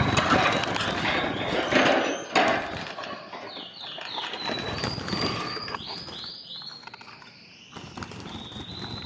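European goldfinches fluttering their wings in a cage, followed from about three seconds in by a run of short, high twittering chirps and a longer held note near the end.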